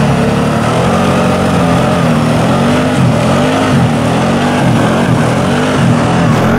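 ATV engine revving up and down over and over as the quad spins donuts, its wheels throwing snow.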